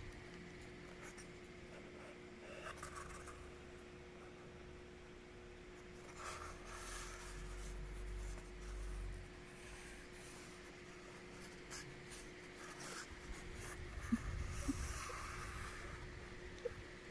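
Faint rustling and rubbing of corrugated cardboard being handled and turned in the hands, over a low steady hum. A couple of light taps come near the end.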